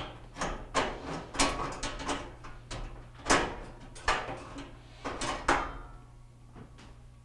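Gas range's control panel being worked onto its mounting slots and tabs: a string of clicks, knocks and rattles as the panel is pushed and shifted into place, the loudest a little over three seconds in, dying down over the last second or two.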